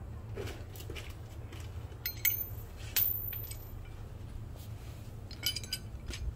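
Light metallic clinks of loose bolts knocking against a metal differential brace held in the hand: two close together about two seconds in, one ringing clink about a second later, and a quick cluster near the end, over a steady low hum.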